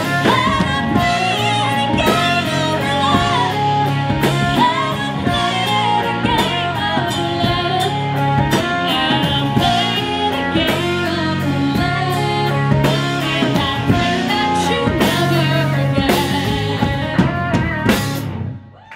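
Live band with electric guitars, bass, keyboard and drum kit playing behind a female lead vocalist. The music stops abruptly near the end as the song finishes.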